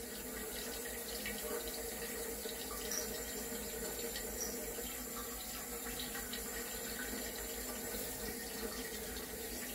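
Water running steadily in a bathroom sink.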